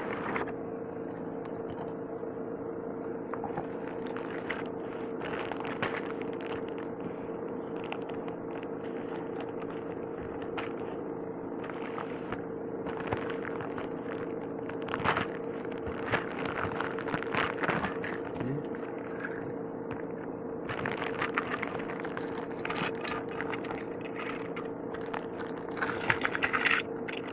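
Toy packaging being handled: plastic and cardboard crinkling, with scattered clicks and scrapes that grow busier in the second half, over a steady low hum.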